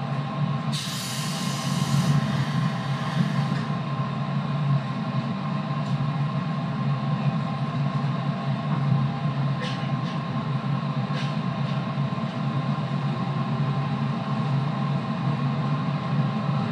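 Running sound of a JR 211 series electric train with external-fan traction motors: a steady drone with several held motor tones at constant speed. A burst of hiss comes about a second in and lasts a couple of seconds, and a few sharp clicks come around the middle.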